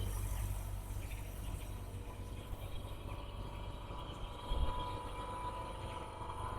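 Vacuum laminating machine running, a steady low hum from its vacuum cycle, with a short thump about four and a half seconds in.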